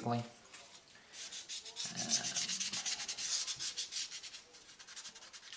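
Sanding sponge rubbed quickly back and forth along the glued seam of a small plastic model torpedo to clear off excess glue: a fast run of short, high scratching strokes, loudest in the middle and softer toward the end.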